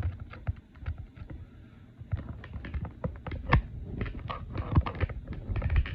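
Irregular clicks, knocks and scrapes of plastic and cardboard toy packaging being handled and pried at by hand while it is opened.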